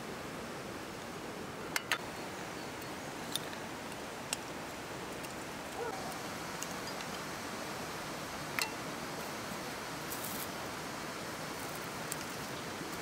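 Dried whole spices dropped by hand into an empty glass teapot, giving a few sharp clicks against the glass, the loudest a close pair about two seconds in, over a steady outdoor hiss.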